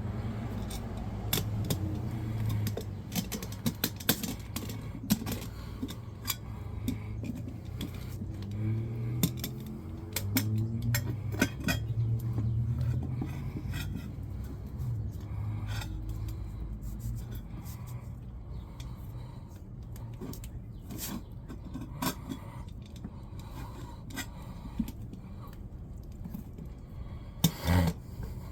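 Screwdrivers scraping and clinking against a wheel rim as a mini bike tire's bead is pried onto the rim a little at a time: irregular metallic clicks and scrapes, with a louder clatter near the end.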